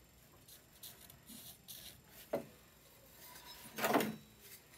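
Quiet handling of a piece of angle iron being marked out with a steel rule and a marker: faint scratches and a tick, then a short, louder scrape near the end.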